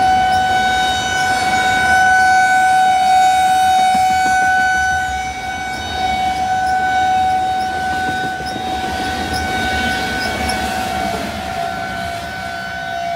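Freight train of tank cars rolling past, the wheels rumbling on the rails. Over it an outdoor civil-defense warning siren sounds a steady single-pitched wail during its monthly test, easing slightly about halfway through and again near the end.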